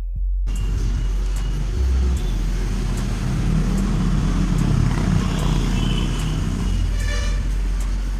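Steady running noise of a vehicle, most likely the Chennai suburban local train, with a heavy low rumble. A short pitched tone, like a horn, sounds about seven seconds in.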